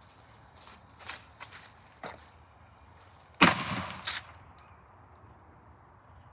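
A firecracker exploding inside a plastic toy washing machine: one sharp bang about three and a half seconds in, with a second, shorter crack just after it. A few faint clicks come before the bang.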